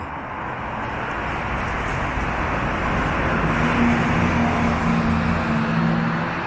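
A road vehicle passing: a rush of tyre and engine noise that swells to a peak about four seconds in and then fades, with a steady low engine hum over its louder part.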